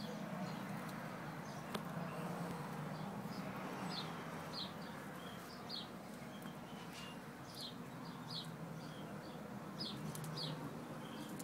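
A small bird chirping repeatedly, short falling chirps every second or so, over a steady low hum.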